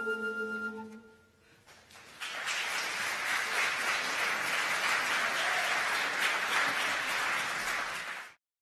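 The last held chord of the music dies away, and after a short pause an audience in a hall applauds steadily. The applause cuts off abruptly near the end.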